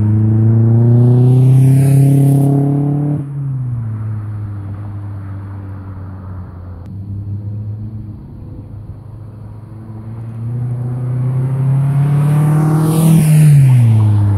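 Mitsubishi Lancer GTS's four-cylinder engine driving past at about 40 mph, twice. Each time the engine note swells as the car approaches and drops sharply in pitch as it goes by, about three seconds in and again near the end, with a rush of tyre and wind noise at each pass.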